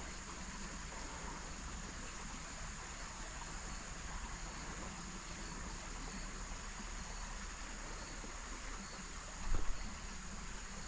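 Small stream flowing steadily under a constant high-pitched insect drone, with a brief louder noise about nine and a half seconds in.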